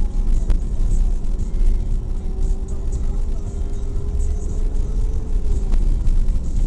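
Off-road vehicle driving slowly over a rough dirt track, heard from inside the cabin: a steady low rumble with a drawn-out whine that slowly rises in pitch, and a couple of sharp knocks from the rough ground.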